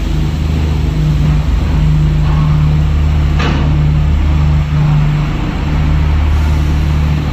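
A heavy engine running steadily with a low, even hum. A short sharp click sounds about three and a half seconds in.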